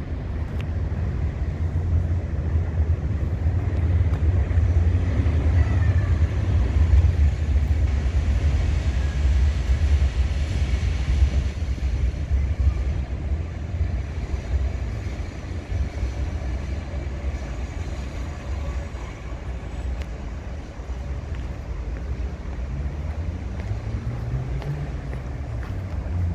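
City traffic noise: a steady low rumble of cars and buses on a nearby road, swelling for a few seconds in the middle and then easing.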